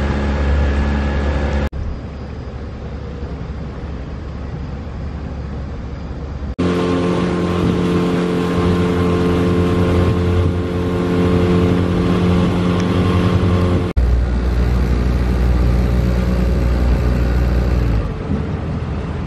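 A small motorboat's engine running at a steady pace, with a low rumble of wind and water under it. The sound shifts abruptly several times as short clips are cut together.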